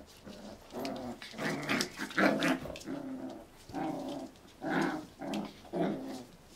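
Seven-week-old Havanese puppies play-fighting, giving a string of short, high puppy growls and yaps. The loudest is about two seconds in.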